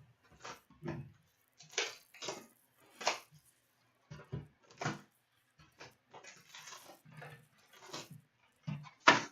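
Hockey card box and packs being handled and opened: a string of short crinkles, taps and scrapes of cardboard and foil wrapper, with the sharpest snap near the end.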